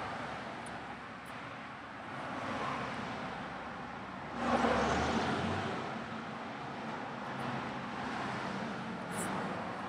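Steady background noise of road traffic, with a louder swell for about a second, four and a half seconds in.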